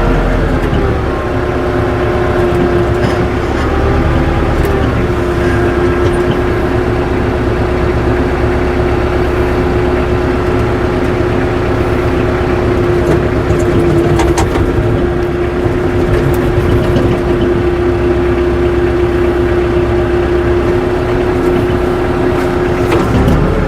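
Tractor engine running at a steady throttle, its pitch dropping about half a second in, holding, and rising again near the end.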